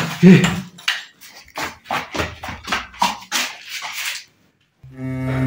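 A rapid, uneven run of knocks and thuds, about three or four a second, that stops about four seconds in. A low, droning music bed comes in near the end.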